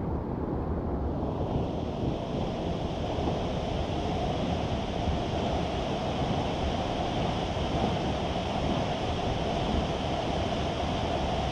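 Steady rush of flowing river water and waterfalls, an even noise that fills out in the higher range about a second in.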